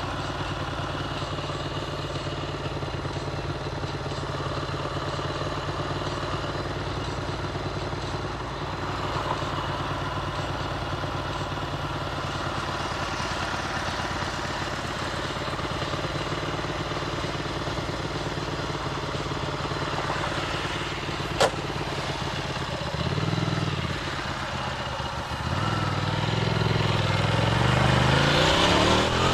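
Ducati Monster's V-twin engine idling steadily for about twenty seconds. Near the end it revs and pulls away, rising in pitch. A single sharp click sounds a little before the revving starts.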